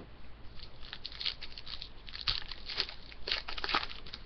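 Crackling and rustling of a hockey card pack's wrapper being torn open and the cards handled, in quick irregular crinkles that grow louder about halfway through.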